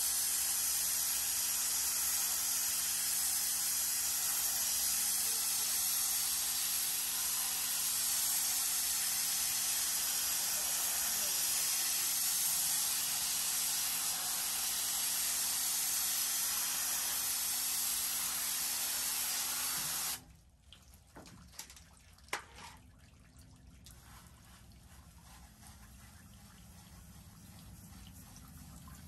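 Pressure-washer spray hissing steadily against a floor mat, cutting off suddenly about two-thirds of the way through. Water then trickles and drips off the mat, with a couple of sharp clicks.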